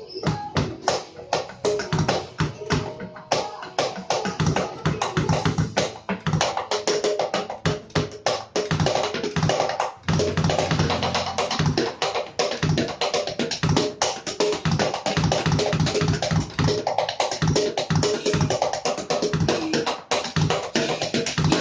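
Tyres played as drums: a fast, steady run of struck beats with deep thuds.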